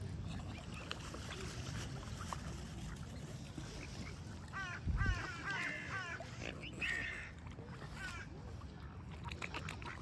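Mallard ducks calling in quick runs of short chirping notes about halfway through, with a few more calls a couple of seconds later. A low thump on the microphone comes around the middle.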